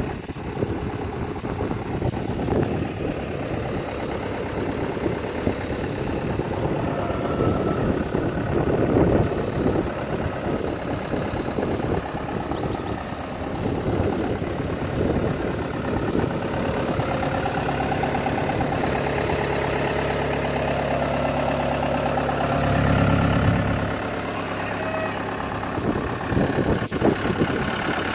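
Diesel engine of a Cat 262C skid steer loader running, its note varying in the first half and holding steady later, with a brief surge in level about 23 seconds in.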